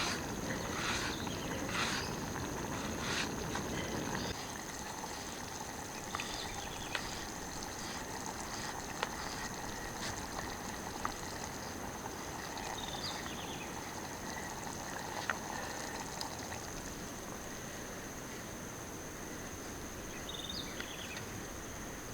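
Forest ambience: a steady high-pitched insect trill, with a denser rushing noise that cuts off suddenly about four seconds in and scattered light clicks afterwards.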